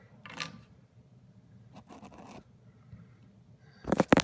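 Handling noises from working on a dishwasher drain air gap: a few short scrapes and rubs, then two louder knocks close together near the end.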